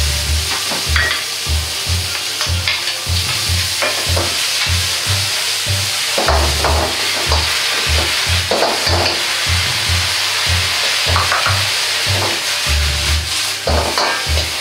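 Shrimp, snow peas and egg sizzling in a hot iron wok, with a steel ladle scraping and knocking against the wok as the food is stirred and tossed.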